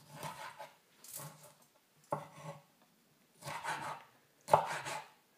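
Kitchen knife cutting a tomato on a wooden cutting board: about five short knocks and cuts spaced roughly a second apart.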